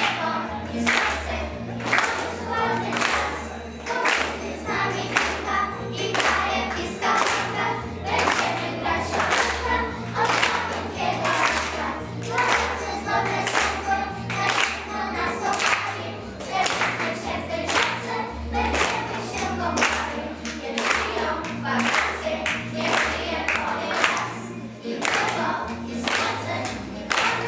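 A group of children singing a song together over a recorded backing track with a steady beat and a repeating bass line.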